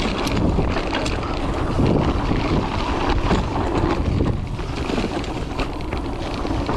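Wind rumbling over a GoPro Hero 8's microphone on a fast mountain-bike descent, over the rolling crunch of tyres on a dirt trail, with scattered knocks and rattles from the bike.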